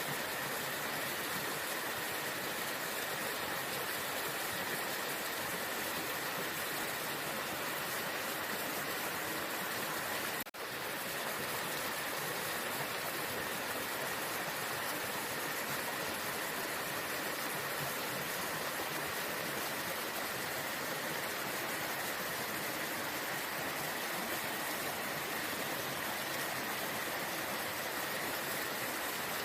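Waterfall: a steady rush of falling water. It dips in level for a moment about ten seconds in.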